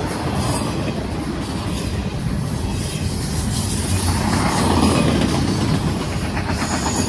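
Freight train rolling by: a steady, loud rumble and rattle of cars on the rails, with a deep low drone underneath.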